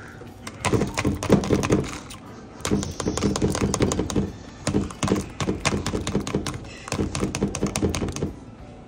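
Raisins rattling in their container as they are shaken out into a pot of milk, in four bursts of rapid tapping a second or two each.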